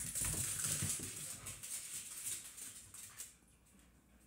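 Dogs running in play: a rush of scrabbling paws and clicking claws on the floor, which dies away about three seconds in.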